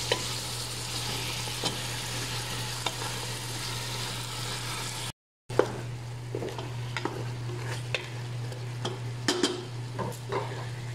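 Chicken pieces sizzling in hot oil in a wok while a spatula stirs and turns them, with scattered clicks and scrapes of the spatula against the pan. A steady low hum runs underneath, and the sound cuts out for a moment about halfway through.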